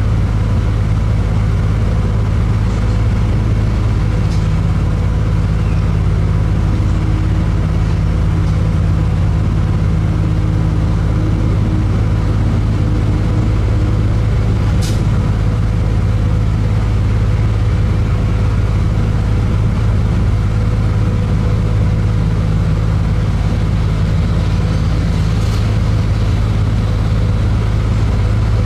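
Steady engine and drivetrain drone heard from inside a moving vehicle's cabin, likely an airport apron bus, with a couple of sharp clicks in the middle and near the end.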